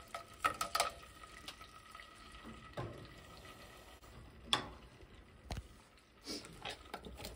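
Frozen green peas frying in hot oil in a frying pan: a low sizzle broken by a handful of sharp, scattered pops as the ice on the frozen peas spatters in the oil.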